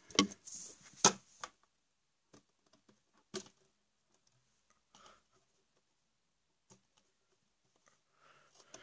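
A few sharp clicks and taps of hands handling a plastic mini fridge, loudest in the first second and a half, then faint scattered ticks.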